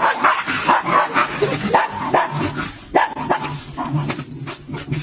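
A dog barking repeatedly in quick, short barks, several a second.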